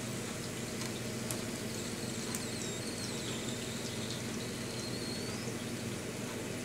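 Hot rendered pork fat draining in a thin trickle from a roasting tin into a ceramic ramekin, with a steady crackling sizzle from the hot fat.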